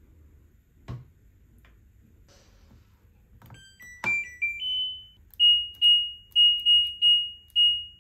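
Washing machine's end-of-cycle signal: a short rising electronic tune, then about six beeps at one high pitch, marking that the spin cycle has finished. A single faint knock about a second in.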